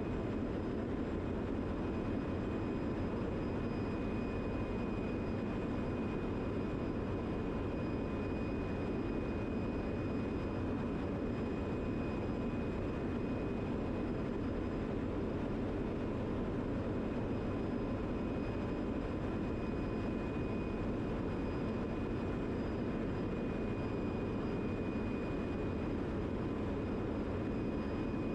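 Steady drone of a ship's engine-room machinery running, an even roar with a faint constant high whine over it.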